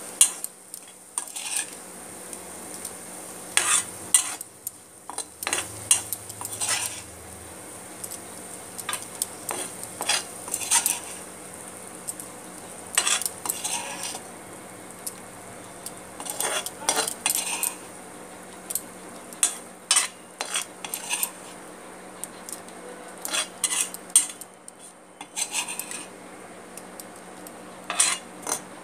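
Metal spoon scraping and clinking against a metal kadai in irregular strokes as the cooked carrot and peanut fry is scooped out of the pan.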